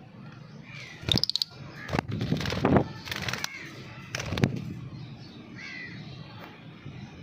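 Parrot giving harsh, crow-like squawks: four loud calls in the first few seconds, then a soft chirp.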